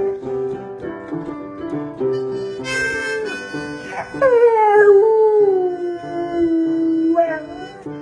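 Dog howling along to music: one long howl starts about four seconds in, slides down in pitch and is then held for about three seconds.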